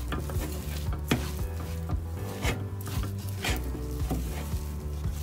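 Wooden spatula stirring and scraping a thick mashed broccoli and potato mixture around a stainless steel pan, in irregular strokes.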